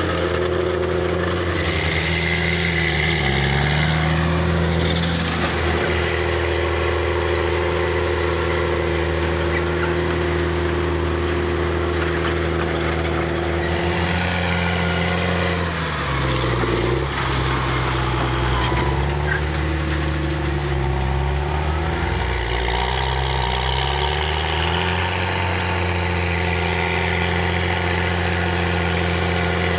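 Caterpillar Challenger MT765B tracked tractor's diesel engine running steadily under load while it pulls a disc harrow through stubble. The engine note dips and recovers several times.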